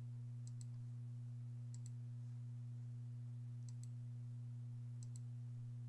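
Steady low hum with four faint double clicks, each pair a split second apart, spaced every one to two seconds.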